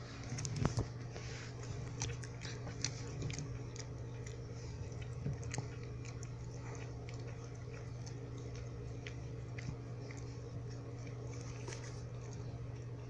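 Puppies chewing and gnawing: a scatter of small clicks and crunches, a little louder under a second in, over a steady low hum.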